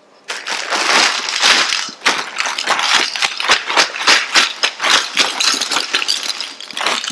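Clear plastic bag of Q-BA-MAZE plastic maze pieces crinkling and crackling as it is handled and pulled open, with many small clicks. It starts a moment in and goes on busily throughout.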